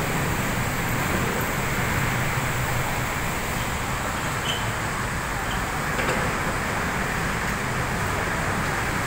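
Steady city road traffic: cars, vans and motorcycles passing, making a continuous low rumble of engines and tyres.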